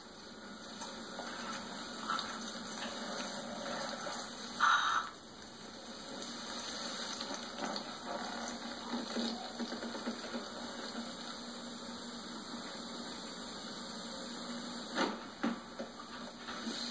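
Steady watery gushing and gurgling, the film's sound effect of blood pouring from a cut throat, heard through a television's speaker. A short louder burst comes about five seconds in, and a few brief louder sounds near the end.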